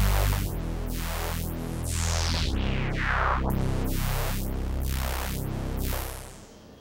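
Behringer DeepMind 12 polyphonic synthesizer playing a patch of held low notes, its filter sweeping closed and open again about once a second. The sound fades out near the end.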